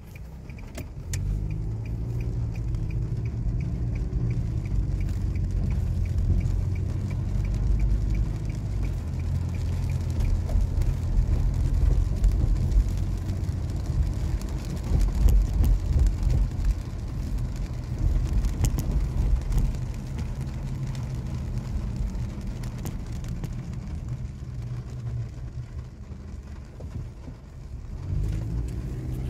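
Car interior while driving on a wet road: a steady low rumble of engine and tyres. A faint, regular ticking runs through the first ten seconds or so.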